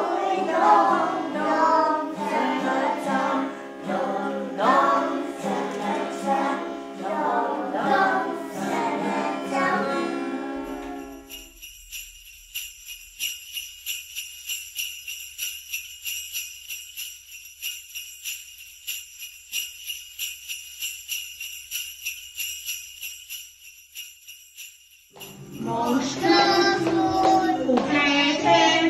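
A group of children singing a Christmas carol, which stops about ten seconds in; then sleigh bells jingling in a steady shaking rhythm for about fourteen seconds; then children's singing starts again near the end.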